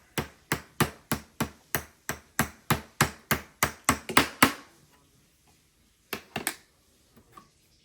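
A hammer striking a block of ice over and over, sharp knocks about three a second, about fifteen in all, stopping about four and a half seconds in; two more knocks follow about six seconds in.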